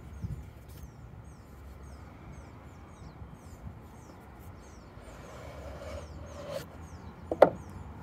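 Hands handling a cardboard knife box and sliding the inner tray out of its sleeve: quiet rubbing of card on card, then a single sharp tap near the end. Small high chirps repeat in the background.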